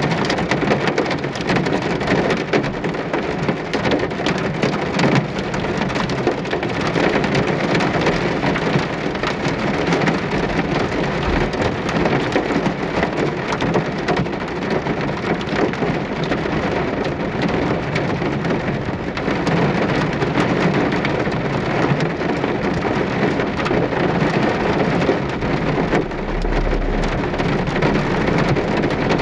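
Steady rain falling: a dense, even hiss of drops with many small individual drop hits, holding the same level throughout.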